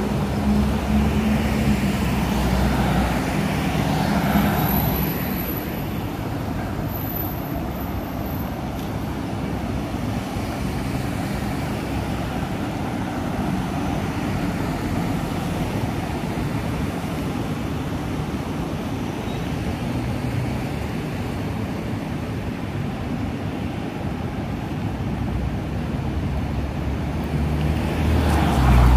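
Street traffic noise from passing cars: a steady roadway hum. It swells louder as vehicles pass closer in the first few seconds and again near the end.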